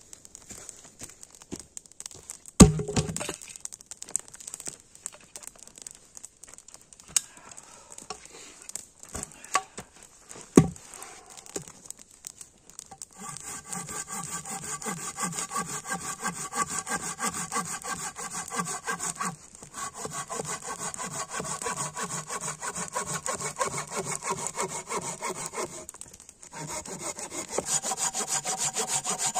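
A curved-blade hand saw cutting through a log in fast, even back-and-forth strokes, starting about halfway in and pausing briefly twice. Before the sawing there are scattered small clicks and two sharp knocks.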